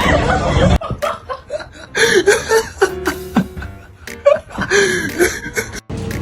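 Laughter in short bursts over background music, with abrupt cuts between segments.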